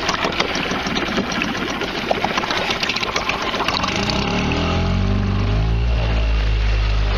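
Mercury 5 hp outboard motor running on a kayak, rattly at first; about four seconds in its pitch rises as it is throttled up, then it runs steadily at the higher speed.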